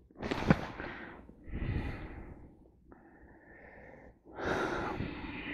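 A man breathing audibly close to the microphone: four noisy breaths, about a second and a half apart, with one sharp click about half a second in.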